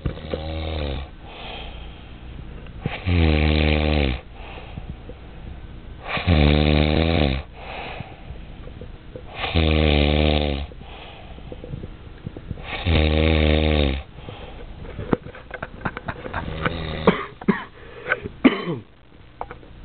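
A sleeping man snoring: five loud snores, each about a second long, about three seconds apart, then a few scattered small clicks after the last one.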